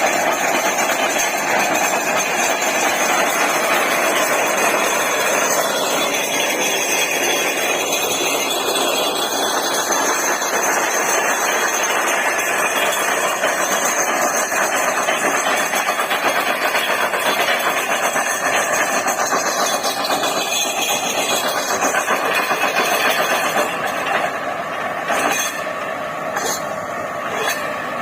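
Borewell drilling rig running loud and steady, its engine and machinery making a dense, continuous noise. Near the end it eases slightly and sharp knocks break in.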